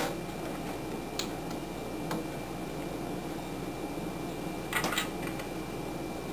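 A few light clicks and taps as LED wire leads are bent and pressed together by hand on a plastic electrical box, the loudest little cluster coming near the end, over steady background noise.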